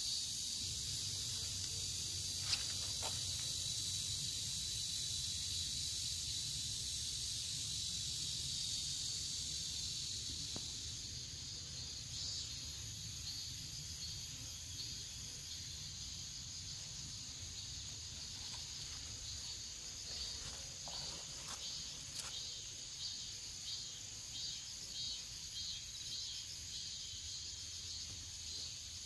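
A steady, high, hissing chorus of insects chirping in grass. From about twelve seconds in, a fast, evenly pulsed chirping stands out, over a low rumble.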